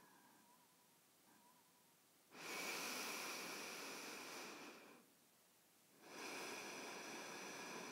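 Faint, slow breathing: two long breaths, each about two seconds, about four seconds apart.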